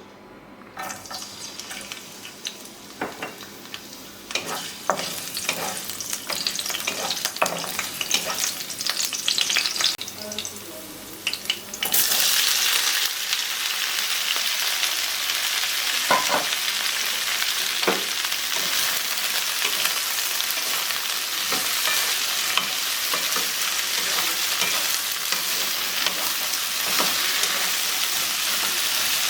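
Scattered crackles and clicks, then about twelve seconds in a sudden loud, steady sizzle as okra goes into hot oil in a pan and fries. A few knocks of stirring are heard in the sizzle.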